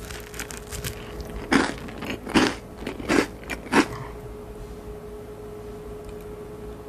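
Wooden spoon knocking and scraping against a ceramic bowl of oiled pasta: four short, sharp clacks in the first four seconds, then only a faint steady hum.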